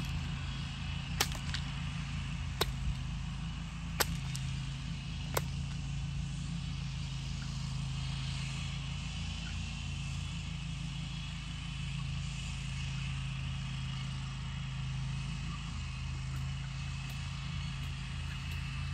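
A whip cracked from horseback: five sharp cracks about one and a half seconds apart, then it stops after about five seconds, over a steady low hum.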